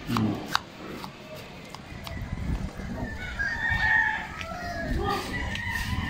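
A rooster crowing: one drawn-out call starting about two seconds in and lasting a couple of seconds.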